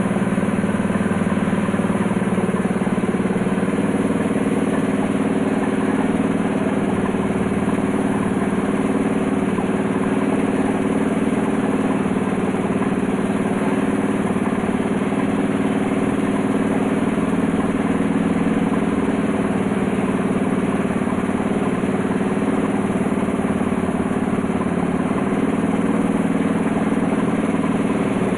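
Air compressor running steadily, with the air hiss of a gravity-feed spray gun spraying primer.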